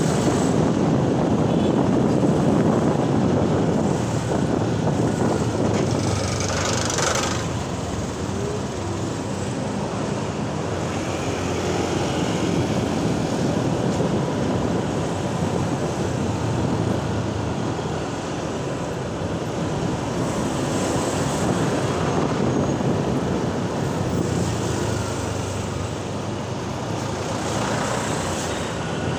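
Ride-along sound from a Honda motor scooter moving in slow, heavy city traffic: the scooter's small engine and road rumble, with cars and buses close alongside. A brief rushing sound rises about seven seconds in.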